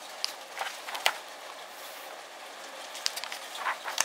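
Colouring-book pages being turned and handled, with a few short sharp paper rustles and taps, over a steady hiss of rain.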